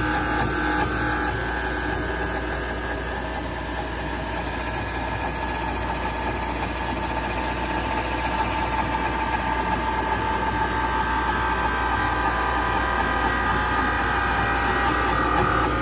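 Duplicating lathe running as it turns a wooden baseball bat blank: a steady machine drone of motor and spinning work, growing slightly louder toward the end.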